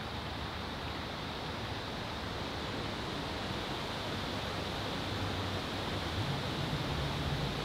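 Steady rushing outdoor noise, with a low hum underneath that grows louder about six seconds in.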